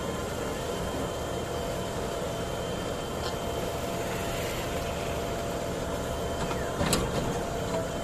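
JCB 3DX backhoe loader's diesel engine running steadily as the machine works, with one sharp metallic knock about seven seconds in.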